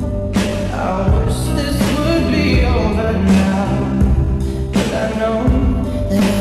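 A pop song with a sung lead vocal over full band backing, pitch-shifted from the original recording.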